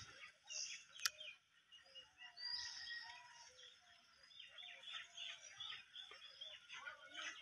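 Faint chirping of small birds, with a run of quick repeated chirps, about four a second, in the second half. A single sharp click about a second in.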